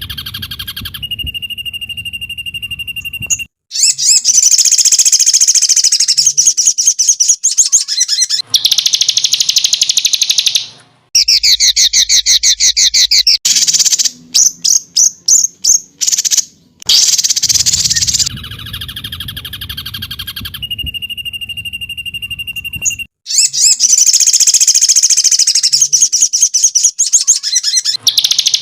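Birdsong training recording (masteran) of loud, rapid chirps and trills, spliced into sections that start and stop abruptly. The same sequence of phrases repeats about every 19 seconds.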